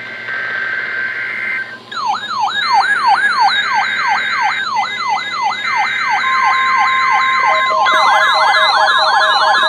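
NOAA Weather Radio SAME alert header: screechy two-tone digital data bursts, heard three times. Over them, from about two seconds in, an electronic siren-like alert tone sweeps down in pitch two or three times a second. A steady tone starts about six seconds in, and a second, faster siren tone and a beeping tone join near the end.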